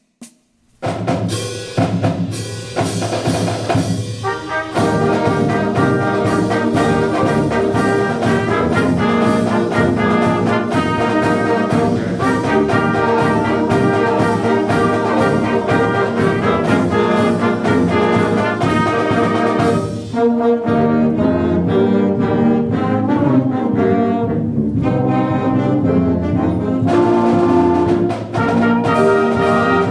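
Brass band music with drums: sustained brass chords over a steady percussion beat, starting about a second in.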